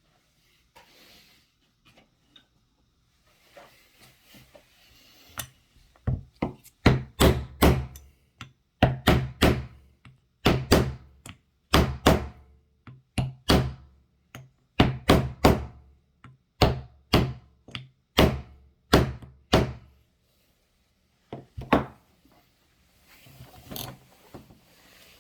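Hard, sharp knocks on a wooden workbench, struck over and over in quick runs for about fifteen seconds, as the parts of a 3/8 inch ratchet are tapped to seat them during reassembly. Light handling clicks before and after.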